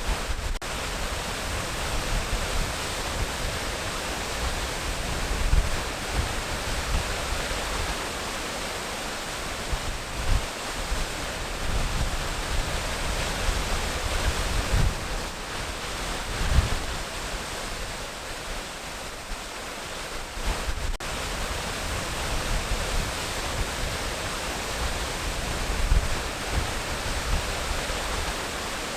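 Waterfall pouring steadily, a constant rushing hiss with an irregular low rumble and occasional heavier gusts, some of it wind on the microphone.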